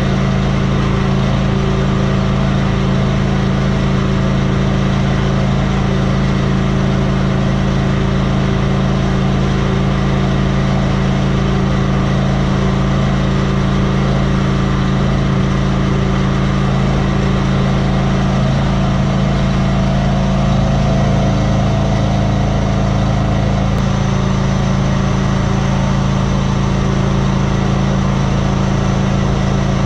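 A bulldozer's diesel engine running steadily at a constant speed, with a faint higher tone that drops out about 23 seconds in.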